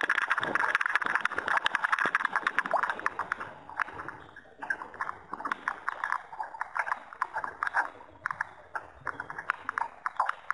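Small waves slapping against the plastic hull of a Hurricane 1000 RC yacht under sail, picked up close by a camera mounted on its deck. A rapid patter of sharp slaps runs thick for the first few seconds, then thins to scattered slaps after about four seconds.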